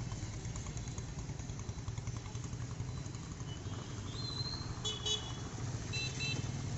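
Street traffic: motorcycle and car engines running in a steady low rumble, with short high-pitched horn toots about five and six seconds in.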